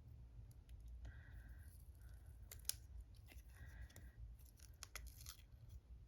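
Plastic shrink-wrap being peeled off a cardboard paint box, heard as faint crinkles and scattered crackles, with short bursts about two and a half seconds in and again about five seconds in.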